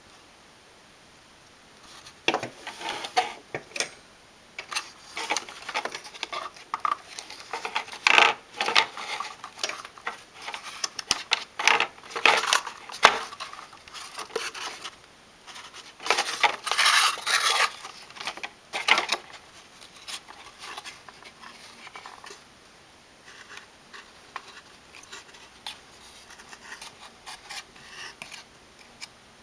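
Computer hardware being handled by hand: a busy run of small plastic and metal clicks, clatters and rustles from about two seconds in to just before twenty seconds, then fainter, scattered taps.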